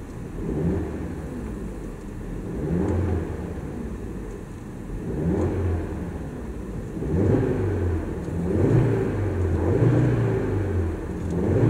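Audi RS3 Sportback's 2.5 TFSI turbocharged five-cylinder engine on its stock exhaust, blipped again and again in neutral while standing, heard from inside the cabin. There are about seven revs, each rising and falling, reaching up to about 4,000 rpm.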